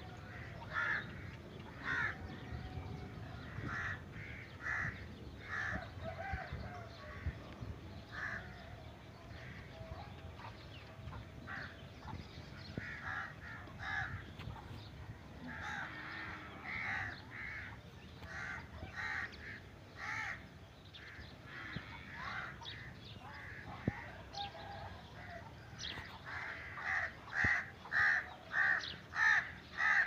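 Crows cawing repeatedly, short harsh calls every second or so, quickening to a run of about two a second near the end.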